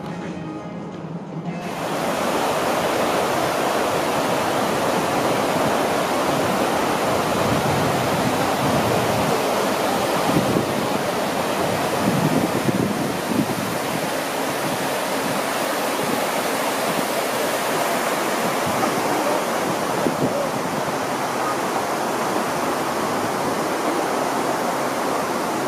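Background music ends suddenly about two seconds in. It gives way to the steady rush of the 9/11 Memorial reflecting pool's waterfall, water pouring down the pool's granite walls into the basin.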